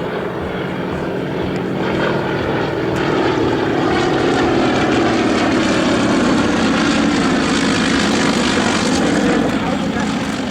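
Propeller aircraft engine of a Yakovlev Yak-50/Yak-52 aerobatic plane, a nine-cylinder M-14P radial, running at power. It grows louder over the first few seconds, is loudest in the middle and eases off near the end, as the plane passes.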